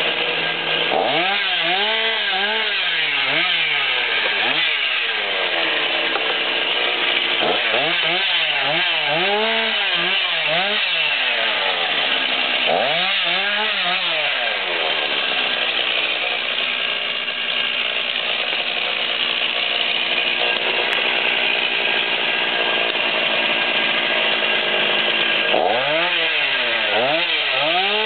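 Two-stroke chainsaw cutting brush at high revs. Its pitch dips and recovers over and over as the chain bites into the wood, in several spells, with steadier running in between.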